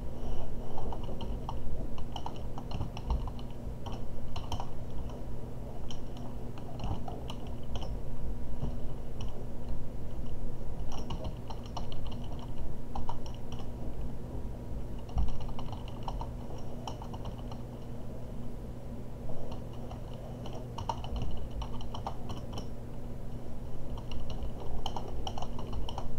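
Computer keyboard being typed on in quick runs of keystrokes with short pauses between them, over a low steady hum.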